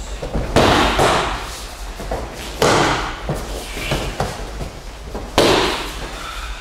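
Three heavy thuds about two seconds apart: a body slamming onto padded mats as an aikido partner is thrown and takes breakfalls. Lighter taps of bare feet on the mat between.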